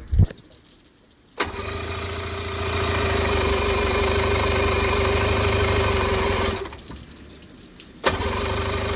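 1975 Mercury 850 two-stroke outboard engine: a short low thump, then about a second later it starts and runs for roughly five seconds, cuts out, and starts again sharply near the end. This is the engine's first run after a new internal wiring harness and distributor and a timing reset.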